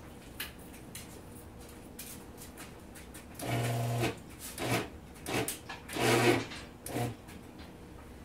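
Stripped plastic motor coupler of a Genie screw-drive garage door opener twisted by hand against its mating part, its worn teeth rubbing and skipping in five short rasping bursts from about three and a half seconds in. This is the stripped coupler that lets the motor spin freely without moving the door.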